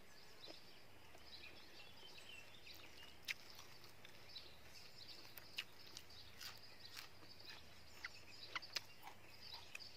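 Quiet eating by hand: scattered soft clicks and small crackles from chewing and from fingers picking salted mackerel and vegetables off aluminium foil, over faint high-pitched chirping in the background.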